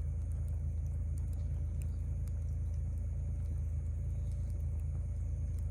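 Wood fire burning in a small portable fire pit, with scattered sharp crackles and pops over a steady low rumble.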